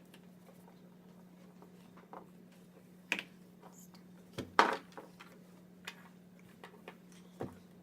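A few sharp clicks and knocks of plastic Play-Doh playset pieces being handled as dough is pressed into the molds, the loudest pair about halfway through, over a steady low hum.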